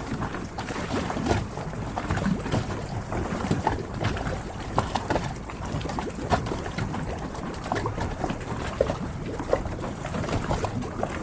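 Harbour water lapping and splashing against moored yachts, with many small irregular knocks.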